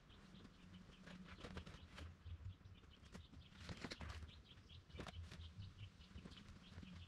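Near silence with faint rustling and scattered clicks as a tarp is thrown over the sawmill's engine unit; the rustling is strongest a little before the middle and again about a second later.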